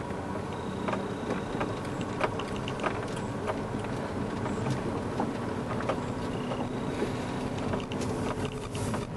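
Steady car running noise heard from inside the cabin, with scattered light clicks and rattles.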